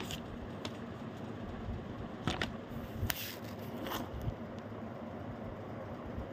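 Steel spoon clicking and scraping against a glass bowl while mixing chicken pieces into yogurt and milk: a few short, sharp clicks over a steady background hiss.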